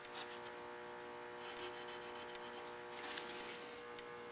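Faint scratching and rubbing from marking out with a pencil and a steel rule, in a few short strokes, over a steady electrical hum.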